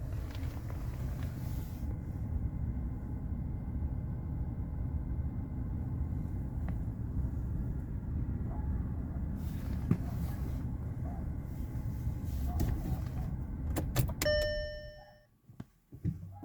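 Audi A4 B8's engine idling steadily, then switched off about fourteen seconds in. A few clicks and a single short electronic chime come as it shuts down, and the rumble dies away, leaving a few light knocks.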